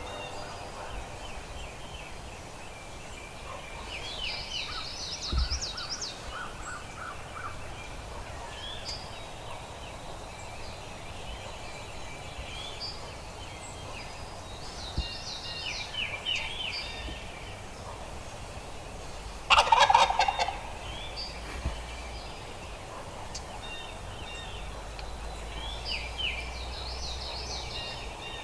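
Wild turkey gobbling several times, with one much louder, closer gobble about two-thirds of the way through.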